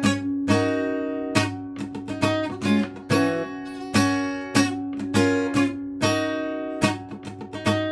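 Acoustic guitar strumming chords in a steady rhythm, about two strums a second, each chord ringing on.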